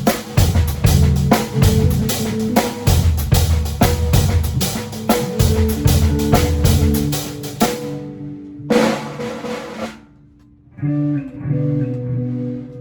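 A band playing: drum kit with snare and bass drum driving a steady beat under guitar. The drumming stops about eight seconds in, a single crash-like burst follows, there is a short pause, and then the guitar and bass play on alone.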